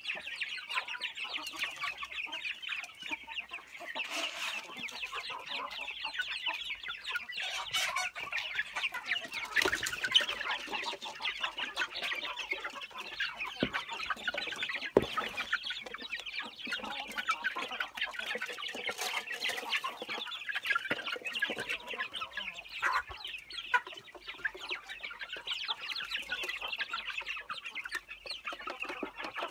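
A crowd of young chickens peeping and cheeping without pause, a dense high-pitched chorus. A couple of sharp knocks break in about ten and fifteen seconds in.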